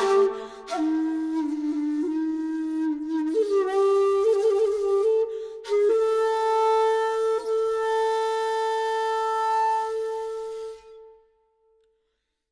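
Solo shakuhachi playing a slow, breathy phrase. Low notes bend and waver in pitch, then a long held note sounds from about halfway and fades out near the end.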